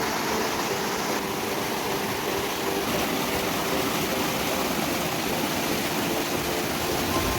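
Flowing river water rushing steadily, an even hiss-like roar with no breaks.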